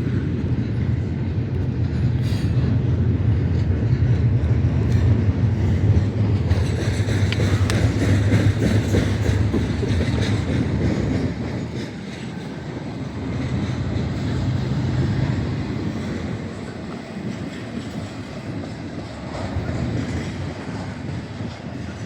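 Norfolk Southern freight train rolling past: a steady rumble of the cars with the clickety-clack of wheels over rail joints, easing off somewhat after about twelve seconds.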